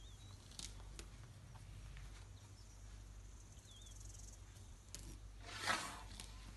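African elephant feeding on grass at close range: one short rough tearing rustle about five and a half seconds in, over a low steady engine hum and a couple of faint bird chirps.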